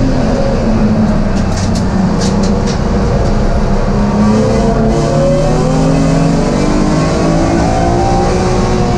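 BMW M3 race car's engine at racing speed, heard from inside the cockpit: the engine pitch dips about three seconds in, then climbs steadily as it accelerates. A few sharp clicks come about two seconds in.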